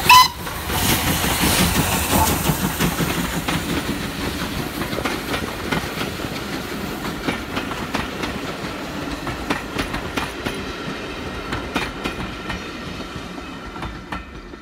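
LSWR T9 class steam locomotive 30120 and its coaches running past. There is a brief loud whistle-like blast right at the start, then the locomotive's rumble for a few seconds. After that the coach wheels clatter over the rail joints in regular clicks, fading as the train moves away.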